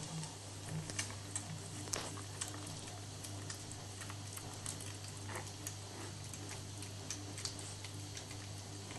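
Old Danish Pointer puppies suckling at their mother's teats: irregular soft, wet clicks and smacks, over a steady low hum.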